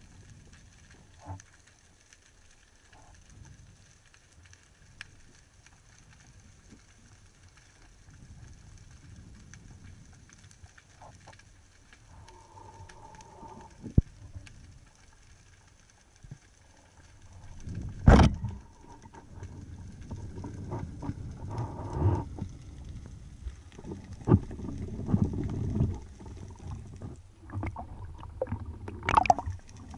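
Muffled underwater noise from a spearfisher's dive camera, with faint clicks and one sharp click about halfway. Later comes a loud knock, then repeated bouts of churning and splashing water near the surface.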